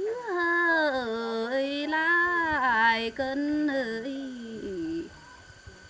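A woman singing a Tày lượn cọi folk song solo, in long held notes that slide and bend in pitch, with a wavering ornament in the middle. The phrase ends about five seconds in.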